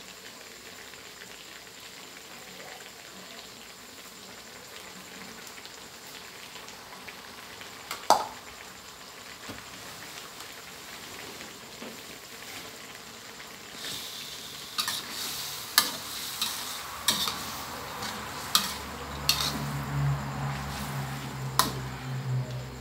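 Catfish and eggplant sizzling in a steel wok, with one sharp knock about a third of the way in. About two-thirds in, a metal spatula starts stir-frying, scraping and clinking against the wok several times a second over a low rumble.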